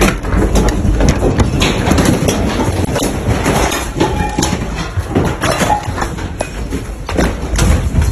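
Earthquake shaking in a room: a loud, continuous low rumble with many quick knocks and rattles of furniture and household objects being shaken about.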